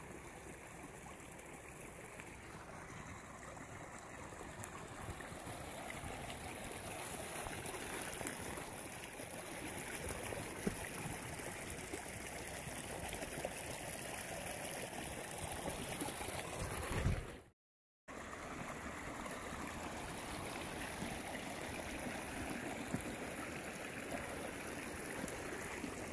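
Small shallow stream running over leaves and mud: a steady rushing, trickling water sound that cuts out completely for a moment about two-thirds of the way through.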